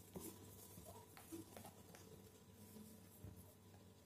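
Faint scuffling, scratching and light taps of two kittens' paws on a cardboard box as they play-fight.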